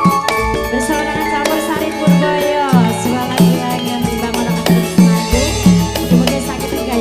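Live campursari music in the langgam style: a band with hand drums and melody instruments keeps a steady beat, and a female vocalist sings at the microphone.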